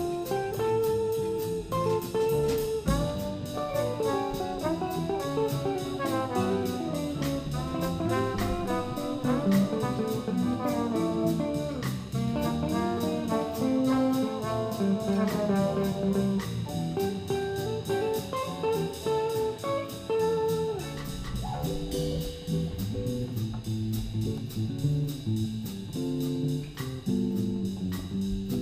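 Small jazz combo playing up-tempo: an alto saxophone runs quick melodic lines over electric bass, electric guitar and drum kit. The lead line thins out about two-thirds of the way through.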